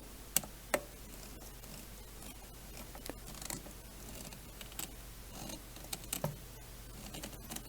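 Light, scattered clicks and taps of small screws, a hex driver and carbon-fibre quadcopter frame parts being handled, with two sharper clicks in the first second.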